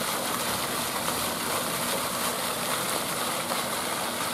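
Ornamental fountain jets falling into their basin: a steady rush of splashing water.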